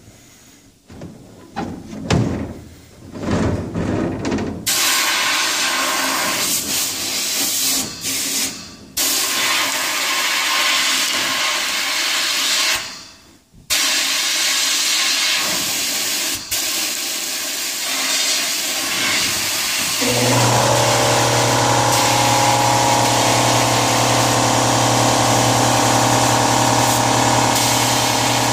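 A few knocks, then the loud hiss of compressed air from a sandblasting cabinet's blast nozzle, starting and stopping as the trigger is worked. About two-thirds through, a motor, most likely the air compressor, starts and runs with a steady hum under the hiss.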